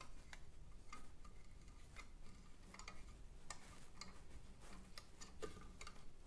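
Faint, irregular metallic clicks from a lever-type valve spring compressor as it is slowly let off a valve spring on a cylinder head, letting the spring come up onto its retainer and keepers.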